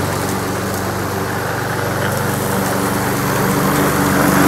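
Honda GCV170 single-cylinder four-stroke engine on a self-propelled Honda HRN216 lawn mower running steadily while mowing. It grows a little louder near the end as the mower comes closer.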